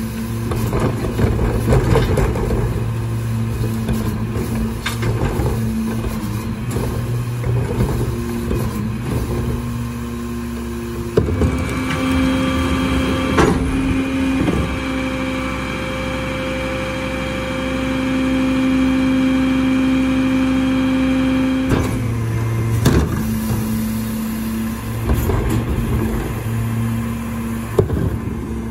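Mack LR rear-loader garbage truck with a Leach Alpha III body idling while its cart tipper dumps a wheeled cart into the hopper, with bangs and clatter of the cart and trash. About eleven seconds in the engine speeds up and a steady hydraulic whine runs for about ten seconds as the packer cycles, then it drops back to idle with more cart clatter near the end.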